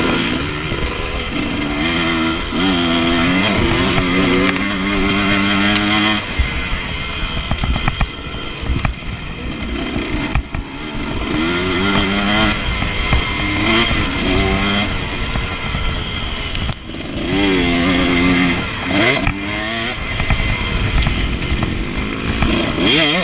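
Husqvarna TC125 two-stroke motocross bike being ridden hard on dirt, its revs climbing and dropping again and again as it accelerates and shifts, with wind rushing over the microphone.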